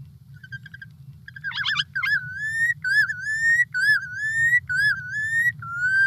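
Recording of a red knot singing its Arctic breeding song: a few short whistles and a brief wavering trill, then a run of rising, slurred whistled notes repeated about once a second, over a steady low hum.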